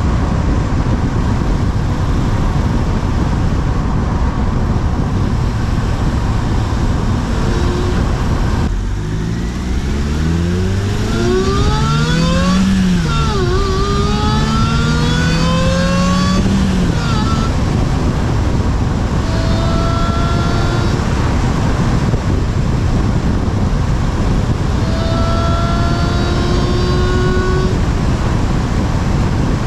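Supercharged 2009 Suzuki Swift Sport accelerating hard. The engine note climbs and drops back at gear changes while a supercharger whine rises in pitch with it, over steady loud road and wind noise. Later come two shorter pulls, each a rising supercharger whine.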